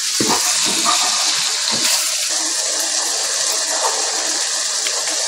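Chicken pieces and sliced sausage sizzling in hot oil in a wok while being stir-fried, with a steady hiss throughout. A wooden spatula scrapes and knocks against the pan a few times in the first two seconds.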